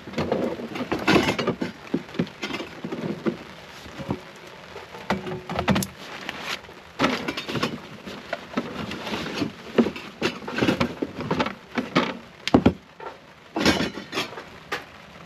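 Irregular knocks and clatter of camp cooking gear being handled and set out, over a steady patter of rain.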